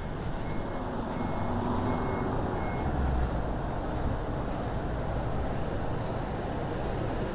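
A vehicle's reversing beeper sounding short high beeps about once every 0.7 seconds, stopping about three seconds in, over a steady low rumble of vehicles and traffic.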